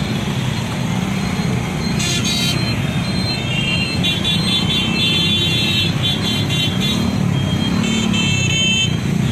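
Many motorcycle engines running as a long column of bikes rides past, with horns beeping repeatedly from about two seconds in.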